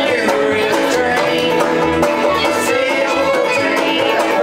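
Bluegrass string band playing an instrumental passage: fiddle melody with sliding notes over banjo picking, and a plucked upright bass keeping a steady beat of about two notes a second.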